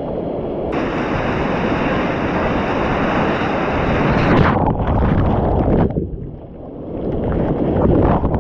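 White water rushing and churning around a kayak, close on the camera. The bright hiss cuts off about four seconds in as the camera goes under, leaving a muffled underwater rush and gurgle that dips briefly and swells again.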